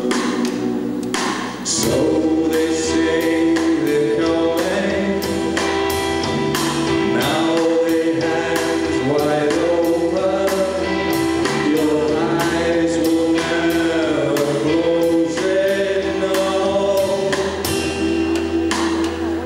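Live band playing: electric guitar, bass, keyboards and drums, with a steady drum beat under a held, slowly moving melody.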